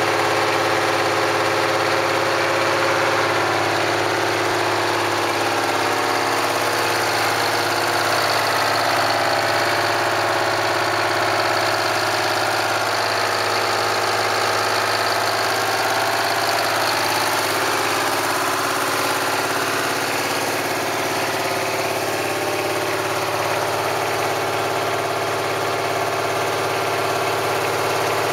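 Detroit Diesel 12V71 two-stroke V12 diesel engine running loud and steady.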